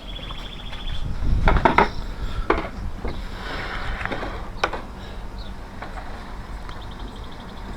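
A few sharp knocks and clicks, bunched about a second and a half in and again twice later, with crickets trilling at the start and near the end.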